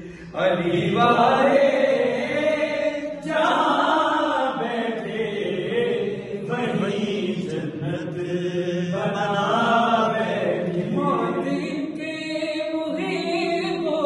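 A group of men's voices chanting a noha, a Shia lament, in long rising and falling phrases with short breaks between them.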